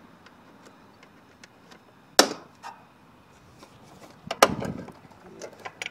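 Plastic latch clips on a 1998 Ford Explorer's air filter housing being snapped shut by hand: one sharp click about two seconds in, then a quick cluster of clicks and knocks a little after four seconds.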